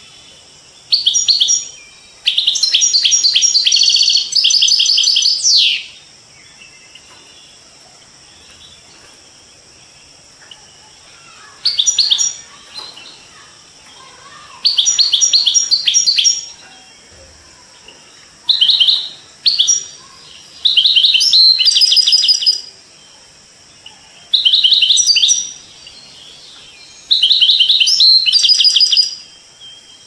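European goldfinch (Carduelis carduelis) singing: repeated bursts of fast, high twittering and trills, each a second or two long, with short pauses between. A fainter, steady murmur of running water continues underneath.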